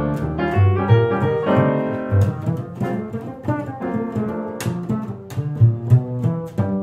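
Double bass and piano playing together: a steady run of low bass notes under piano notes and chords.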